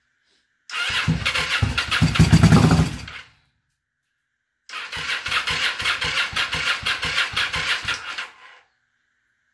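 A 1994 Kawasaki Vulcan 750's V-twin being cranked on its electric starter twice: about a second in it turns over and fires, running loudest for a moment before dying, then from about halfway it cranks again with an even chugging for about four seconds. It runs only briefly on fuel sprayed into the freshly reinstalled carburettor, with the choke set for a cold engine.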